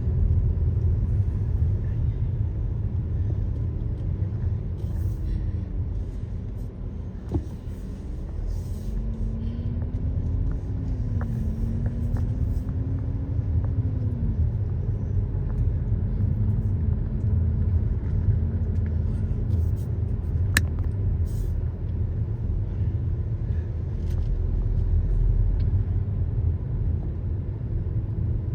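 Steady low rumble of engine and road noise heard inside a car driving slowly, with a faint wavering tone now and then and a couple of sharp clicks.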